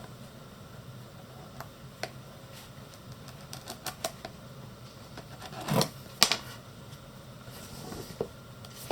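Cardboard phone box being handled and opened: scattered light taps and clicks, with a louder scrape and a sharp click about six seconds in.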